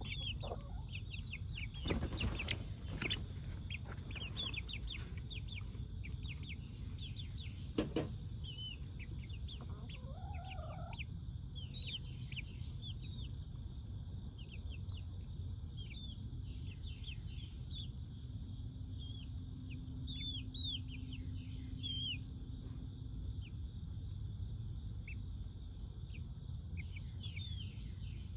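Young chickens peeping: many short falling chirps, on and off, over a steady high drone of insects. A few sharp knocks stand out about two, three and eight seconds in.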